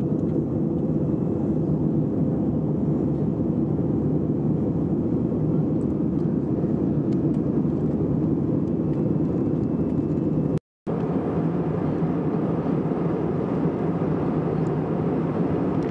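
Steady in-flight cabin noise of an easyJet Airbus A319: the even, low rush of the jet engines and airflow, with a faint steady hum in it. It breaks off into a sudden gap of silence under a second long about two-thirds of the way through, then carries on unchanged.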